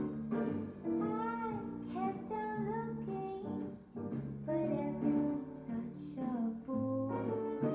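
Background music: a melody of changing, slightly wavering notes over sustained lower notes.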